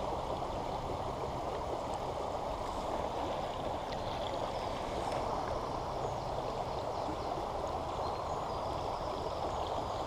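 Shallow, fast stream running over stones and riffles: a steady, even rush of water.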